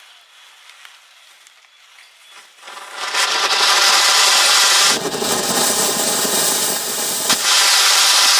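Burning matchsticks crackle faintly, then about two and a half seconds in a ground fountain firework ignites and sprays sparks with a loud, steady hiss that lasts to the end, growing heavier in the middle with one sharp crack about seven seconds in.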